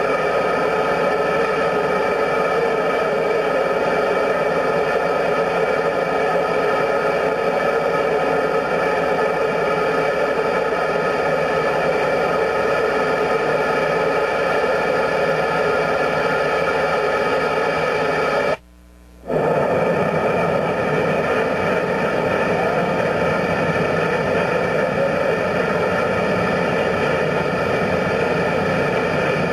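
A ring of gas burners around a steam locomotive driving wheel, burning with a steady, loud rushing noise as they heat the steel tire so it expands for replacement. The sound cuts out for about a second past the middle, then resumes unchanged.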